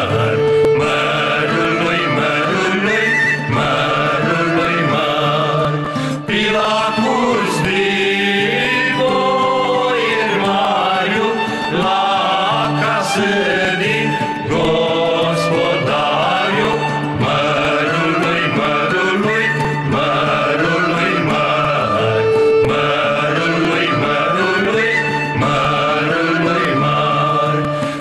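Voices singing a Romanian Christmas carol (colind), with an instrumental backing that holds steady low notes under the melody.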